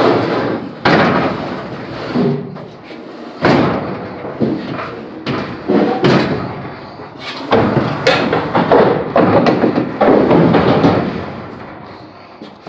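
Repeated loud bangs and rattling from the metal body of an empty aluminium cattle trailer as someone walks through it. Each one starts suddenly and dies away over a second or two.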